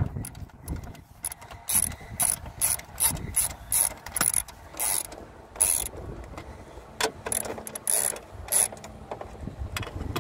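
Hand ratcheting screwdriver with a hex nut-driver bit clicking in repeated bursts as it drives a screw into the air conditioner's metal cover, its pawl rattling on each back-turn of the wrist.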